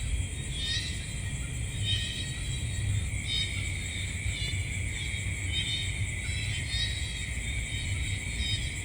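Night insect chorus: a steady high trilling, with a repeated chirping call about once a second, over a low rumble.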